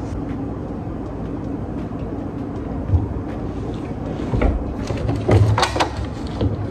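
A steady low rumble with a few sharp knocks and clatters: one about three seconds in, and a louder cluster between about four and six seconds. These are a person moving about a small room and handling things.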